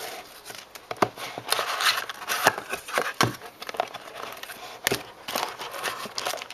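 A 2010 Crown Royale football trading card box being opened and its packs handled: irregular rustling and crinkling of cardboard and wrapper, with scattered sharp clicks.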